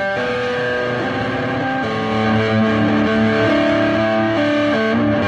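Electric guitar played through a small Vox combo amplifier, a line of held single notes that change pitch every half second to a second.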